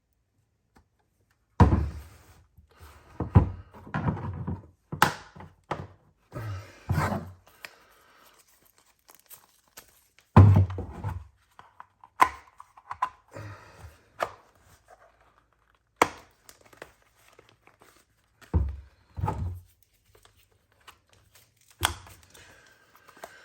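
Handling of a Fluke 87 multimeter's plastic case and battery door as it is closed up: irregular knocks, thuds, clicks and rubbing, with short pauses between them.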